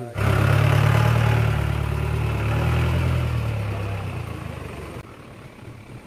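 A Maruti Gypsy jeep's engine running. It comes in suddenly, runs steadily, then fades away after about three seconds.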